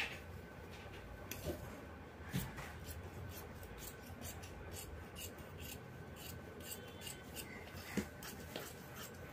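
Large tailoring scissors cutting through blouse fabric along chalk lines: a steady run of crisp blade snips, with the cloth rustling as it is handled.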